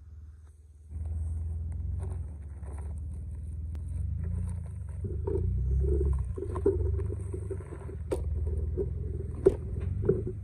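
Off-road Jeep Wrangler's engine running at low crawling speed as it picks its way over boulders, with a steady low rumble that comes in about a second in. A few sharp knocks near the end, the loudest at about nine and a half seconds.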